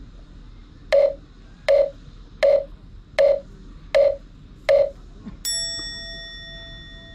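Comedic edit sound effect: six hollow wooden-fish (mokugyo) knocks, about three-quarters of a second apart, then a struck Buddhist rin bell that rings out and slowly fades: the 'poku poku chiin' gag for waiting in vain.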